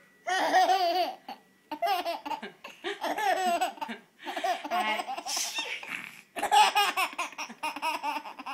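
A baby laughing in about five long bouts with short breaks between them.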